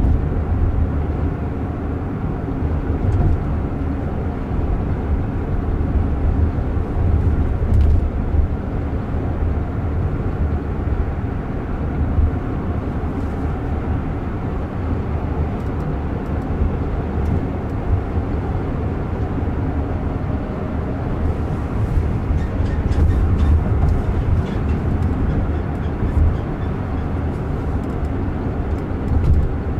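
Steady low rumble of tyres and road heard inside the cabin of a Waymo Jaguar I-PACE electric car cruising along, with no engine sound. A cluster of faint light ticks comes about three quarters of the way through.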